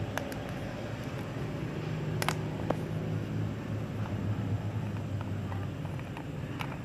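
Plastic screw cap on an engine-oil bottle being twisted open, giving a few sharp clicks and cracks as its seal gives way, the loudest a little over two seconds in. A steady low hum runs underneath.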